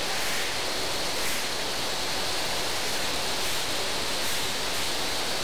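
Steady, even rushing noise from a running glass-vial conveyor and filling machine, with no distinct clinks, knocks or rhythm.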